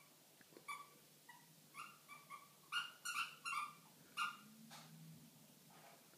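Puppy squealing while play-fighting with a kitten: a rapid string of about ten short, high yelps in the first four seconds, then fading to a couple of faint ones.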